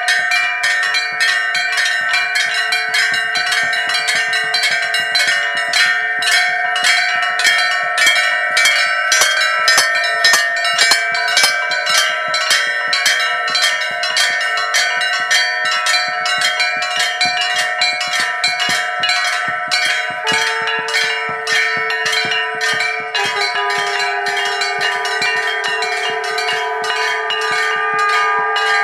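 Many hanging temple bells rung by hand together for the evening aarti: a rapid, unbroken clanging of overlapping strikes, several a second, with the bells' tones hanging on between them.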